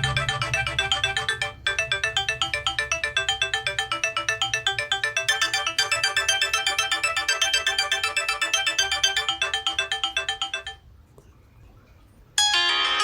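Nokia 6555 ringtone: a melody of rapid, evenly repeated notes that breaks off briefly about a second and a half in, then carries on until it stops a couple of seconds before the end. After a short pause a different ringtone begins.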